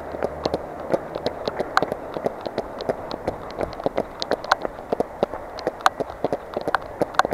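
Running footsteps on wet pavement in the rain, with a rapid, irregular patter of sharp taps from raindrops striking the body-worn camera, over a steady hiss of rain.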